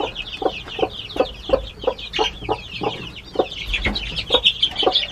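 Broody mother hen clucking steadily to her brood, about three short low clucks a second. Over it, a crowd of newly hatched chicks peep continuously in high falling chirps.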